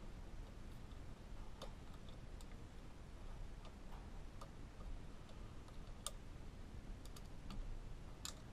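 Scattered light clicks and ticks of screws and a hand tool being worked into a steering wheel hub adapter, about one every second or so.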